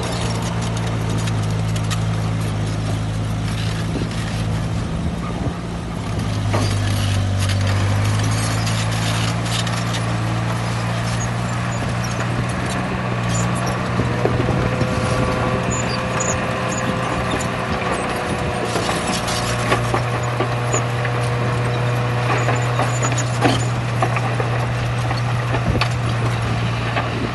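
Heavy diesel engine of a bulldozer at work running steadily, its pitch shifting up and down a little. Scattered metallic clanks throughout, and a held squeal in the middle.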